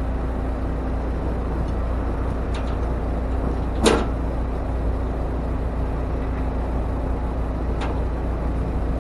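Steady vehicle hum with a sharp knock just under four seconds in and two fainter clicks, one before and one after it.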